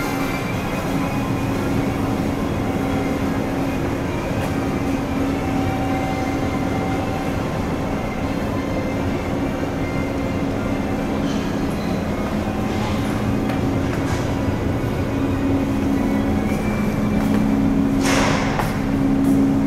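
Steady low drone of the car ferry Tokiwa Maru's engines heard inside the passenger cabin while under way, with a couple of steady low hum tones. A brief rushing noise rises near the end.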